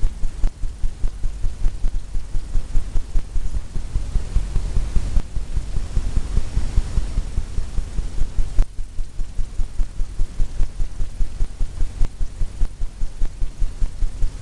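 Paintbrush working paint onto a stretched canvas, the canvas thumping in a quick steady rhythm of about five strokes a second.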